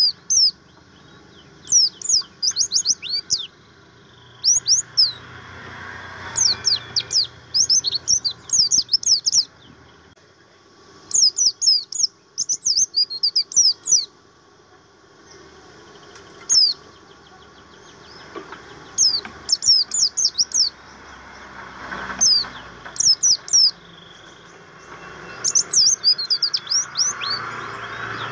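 A white-eye, of the 'pleci buxtomi' type, singing in bouts of rapid, high, steeply slurred notes, each bout a second or two long, repeated after short pauses.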